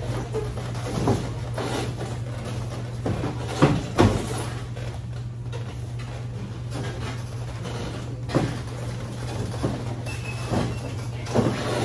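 Thumps and scuffs of bare feet and bodies on a padded ring mat during jiu-jitsu sparring, the loudest two close together about four seconds in, over a steady low hum.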